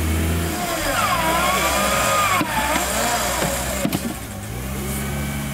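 Suzuki Jimny's engine revving high as the 4x4 works through deep mud, its pitch wavering up and down, then settling back to a lower, steadier run about four and a half seconds in.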